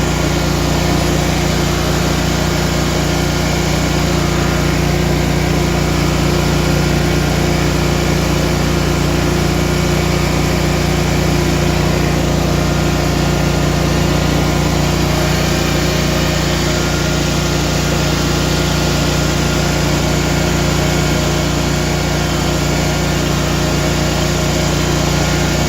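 Riding lawn mower engine running steadily at low throttle as the mower creeps forward slowly.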